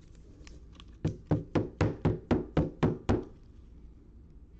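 Nine quick, evenly spaced knocks, about four a second, after a few faint ticks.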